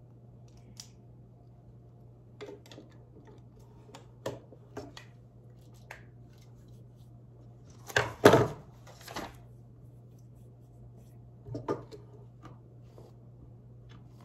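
Plastic Lego pieces being handled and pressed together: scattered light clicks and knocks, with a louder cluster of clatter about eight seconds in, over a steady low hum.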